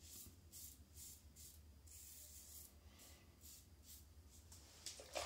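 Double-edge safety razor with a Gillette Rubie blade scraping through lathered stubble on the neck. It makes a faint, dry rasp in a series of short strokes.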